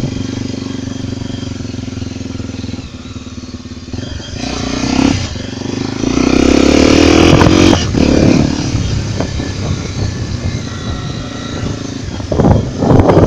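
Honda XR 250 Tornado's single-cylinder four-stroke engine running as the motorcycle is ridden. It revs up about four seconds in and is loudest for a couple of seconds after that, then settles back, with rough bursts of noise near the end.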